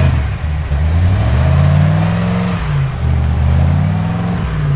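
Off-road 4x4 engine revving, its pitch climbing and dropping back twice.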